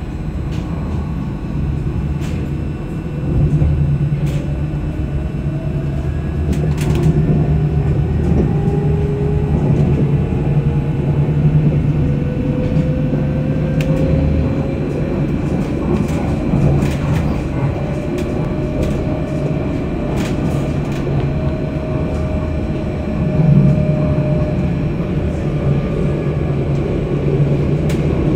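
Electric tram heard from inside the car as it pulls away and gathers speed: the traction motors whine, rising slowly in pitch and then levelling off, over a steady rumble of wheels on rails, with a few sharp clicks from the track.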